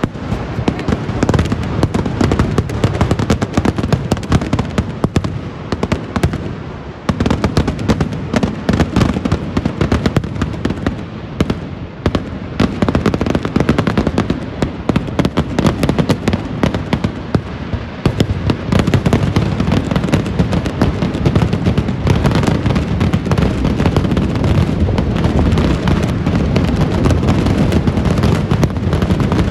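Massed firecrackers and aerial shells of a Kerala temple-festival vedikkettu fireworks display going off in a continuous rapid barrage of bangs, many a second. The barrage thins briefly about seven seconds in and again near twelve and eighteen seconds, then swells back to a dense roll.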